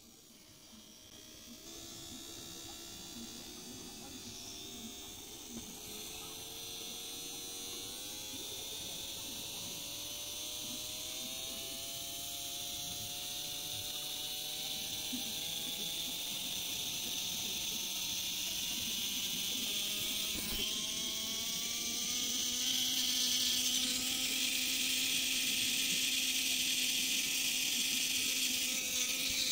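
Brushed DC motor running off an adjustable power supply, its whine climbing steadily in pitch and getting louder as the supply voltage is turned up from about 5 V to over 30 V.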